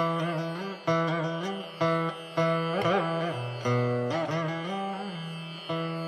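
Background music: a Carnatic piece on a plucked string instrument, its notes plucked about once a second and bent in pitch over a steady low drone.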